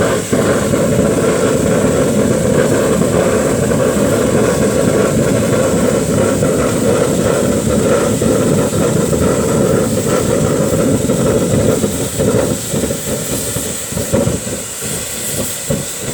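Waste oil burner firing into a foundry furnace, running as a loud, steady rush of flame and air with a thin high whine over it. About twelve seconds in, it dies down and starts to sputter unevenly as the burner is choked out for shutdown.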